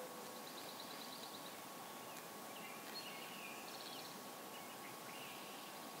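Faint songbird calls over a steady outdoor hiss: a quick high trill early, then a string of short chirps and warbled phrases from about halfway through. A low cooing note, the tail of a mourning dove's call, ends just as it begins.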